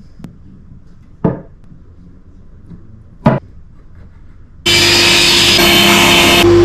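Two sharp knocks, like wood being struck or set down, about two seconds apart. Then a loud electric power tool comes in suddenly and runs steadily with a constant whine.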